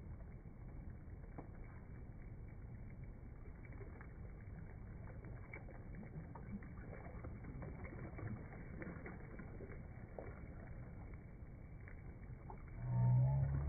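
Faint, steady rush and lapping of a shallow, rocky river, with scattered small splashes and drips from a hand moving in the water. Loud music comes in near the end.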